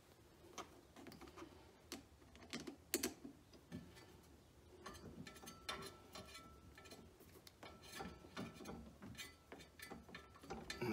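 Faint, irregular clicking and light rattling as a hose clamp is tightened onto the rubber fuel hose of a generator's propane conversion kit.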